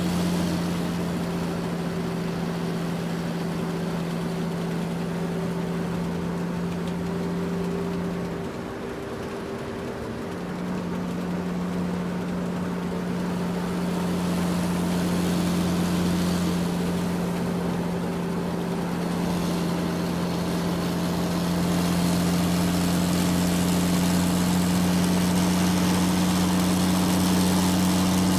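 Excavator's diesel engine running steadily with a low drone; it eases briefly about a third of the way in, then picks up again and grows a little louder.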